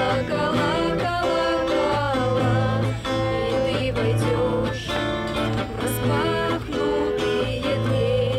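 Women singing a bard-style song to an acoustic guitar being played.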